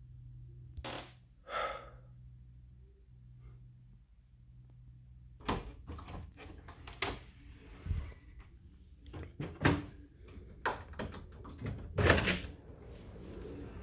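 A steady low hum, then from about five seconds in a run of irregular knocks and thuds, the loudest about twelve seconds in.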